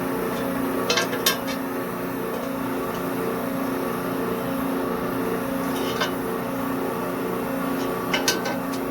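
A machine's motor running with a steady hum, with a few short metallic clinks about a second in, around six seconds in and twice near the end.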